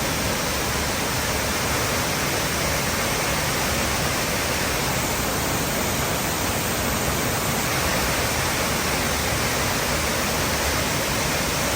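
Waterfall on a mountain river pouring with a steady, loud rush of water.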